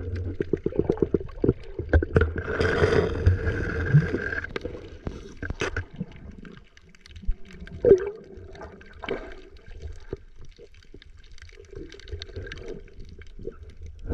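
Underwater water noise picked up by a submerged GoPro: a muffled rumble with bubbling and rapid clicking for the first few seconds as the swimmer moves through the water, then quieter scattered clicks and crackles, with one sharp knock about eight seconds in.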